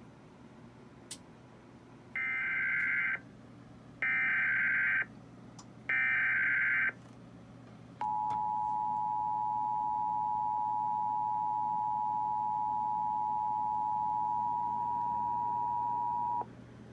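Emergency Alert System tones received over FM radio: three one-second bursts of the SAME digital header data, each a harsh electronic screech, then the steady two-tone attention signal held for about eight seconds before cutting off suddenly. This sequence marks the activation of an emergency alert, here a practice/demo warning.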